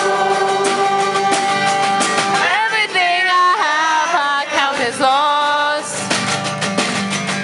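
Live acoustic band music: voices singing into one microphone over acoustic guitar, accordion and a snare drum played with sticks, keeping a steady beat. Held chord tones give way to a lead vocal melody about two and a half seconds in.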